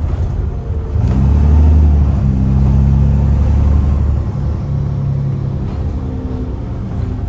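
Alexander Dennis Trident/Enviro400 double-decker bus's diesel engine pulling away, heard inside the bus, with the deep, loud rumble of a blown exhaust. The engine note rises about a second in, holds loud for a few seconds, then eases off.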